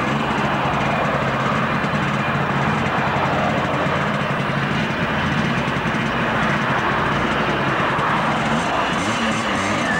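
Road traffic passing close by, cars and then a van, with a steady engine note underneath that wavers near the end as the van goes past.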